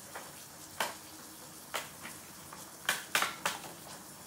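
Clear plastic berry punnets being handled on a kitchen counter: a series of sharp plastic clicks and taps, about six in all, three of them close together near the end.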